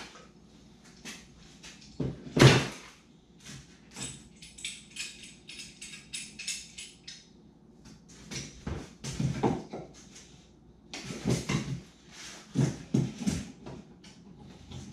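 Clamps and pieces of wood being handled and set against the side of a foam boat hull: irregular knocks, clicks and scrapes, with the loudest sharp knock about two and a half seconds in.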